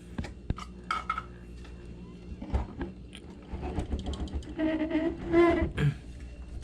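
Scattered clicks, knocks and scraping from hands working on the refrigerator's evaporator while checking it for a puncture, over a steady low hum from the running compressor. A short voice-like sound comes about two-thirds of the way in.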